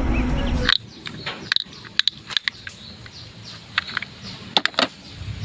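Plastic toy vehicles being handled: a series of sharp, short clicks and knocks at irregular intervals. Before that, a loud low steady sound cuts off suddenly under a second in.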